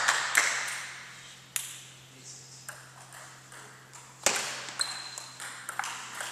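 Celluloid table tennis ball clicking off paddles and the table: a few separate taps, then from about four seconds in a quick back-and-forth of hits in a rally.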